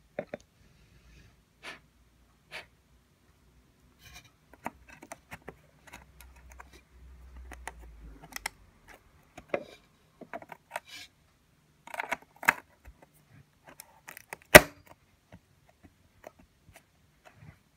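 Hands handling an iMac's memory modules and memory bay: scattered small clicks, taps and rubs, with one sharp click about fourteen and a half seconds in.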